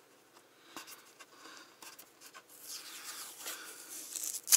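Hands handling a freshly jigsaw-cut workpiece: light rubbing and scraping with scattered small clicks, and one sharp knock near the end.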